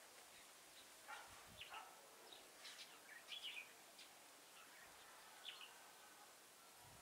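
Faint chirping calls of red-whiskered bulbuls: a scatter of short notes, busiest in the middle.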